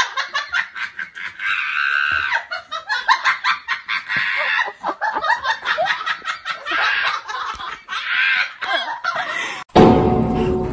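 A person laughing hard in rapid, high-pitched giggles. It breaks off suddenly near the end and music comes in.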